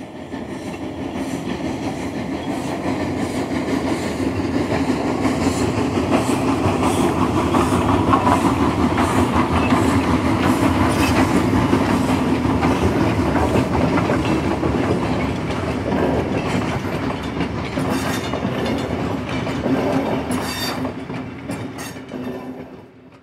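A train rolling along track, its wheels clicking over the rail joints. It swells up in the first few seconds, runs steadily, and fades out near the end.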